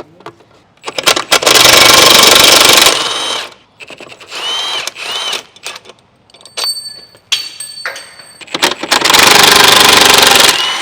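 Impact wrench hammering on bolts in two long runs, the first about a second in and the second near the end, with a shorter, softer burst and a rising and falling whine between them.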